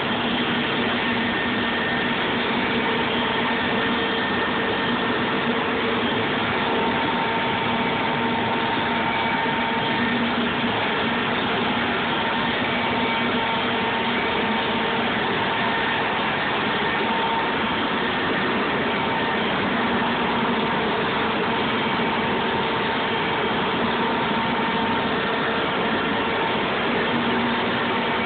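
Steady drone of running shop machinery, with a few faint steady hums and no change in level.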